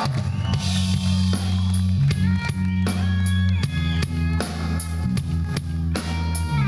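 Live country band music: a drum kit keeps a steady beat under held bass notes and guitar.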